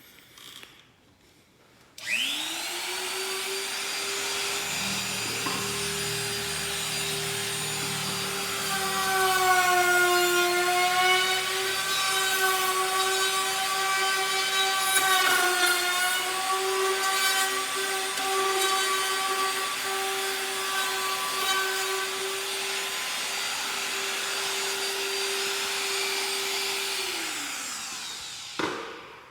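Trim router with a roundover bit starting up and running at a steady high whine, louder and dipping slightly in pitch through the middle as the bit cuts along the edge of a wooden board. It switches off and winds down near the end.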